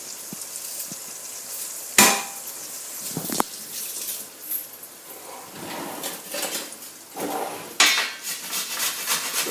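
Kitchen pots, pans and metal utensils clattering and clinking in a few separate knocks, the sharpest clank about two seconds in, with another loud one near the end.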